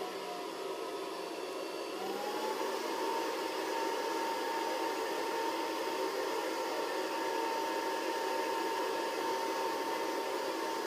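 Steady whir of an electric appliance motor, with a thin whine that rises slightly about two seconds in and then holds steady.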